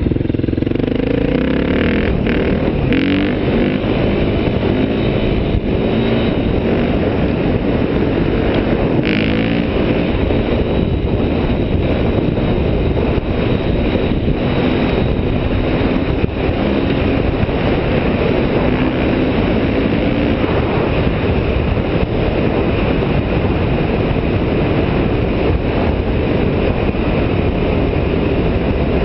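Dirt bike engine running while riding along a road, its pitch shifting up and down with throttle and gear changes, under a heavy low rumble of wind on the microphone.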